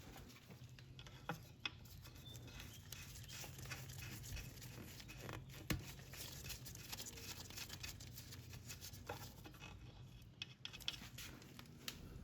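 Faint scattered clicks and rustling of hands at work: the oil dipstick being pulled, wiped and reinserted to check the level after a top-up.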